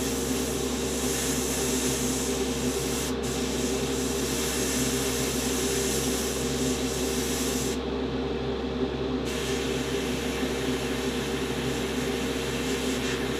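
Gravity-feed airbrush spraying a steady hiss of air and paint, lightening the grey on individual panels. The hiss cuts off for a moment about three seconds in and for about a second and a half around eight seconds in as the trigger is let off. A steady low hum runs underneath.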